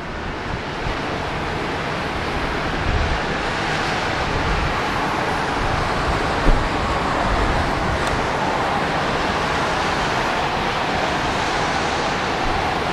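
Steady rushing noise like surf or wind, with wind buffeting the microphone in low gusts and a brief bump about six and a half seconds in.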